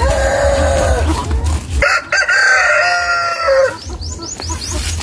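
Rooster crowing twice: one long crow ends about a second and a half in, and a second crow of about two seconds follows right after.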